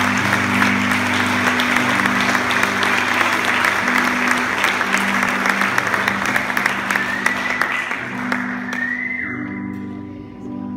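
Audience applauding, the claps dying away over about nine seconds, while a guitar sounds low notes underneath. A high steady tone rises briefly as the clapping fades, and a few guitar notes ring out clearly near the end.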